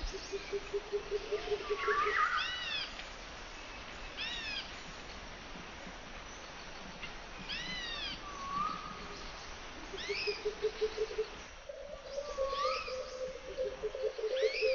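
Animal calls: short arching calls that rise and fall, each with several overtones, repeated every second or two. Low pulsing trills run over them near the start and again from about ten seconds in.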